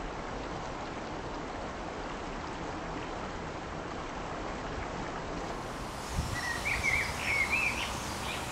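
Steady rush of flowing river water. From about six seconds in, a bird chirps over it in a few short, quick phrases.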